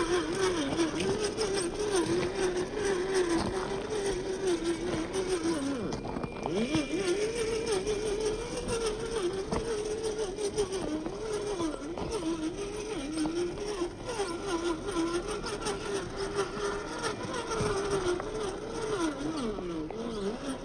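Electric drive motor and gearbox of a 1:10 RC scale crawler whining, its pitch wavering up and down as the throttle is worked at crawling speed, with stones crunching under the tyres.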